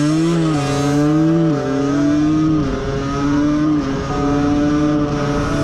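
Aprilia 50 cc moped's two-stroke single-cylinder engine running steadily as the bike rides along, its pitch dipping slightly a few times as the throttle eases.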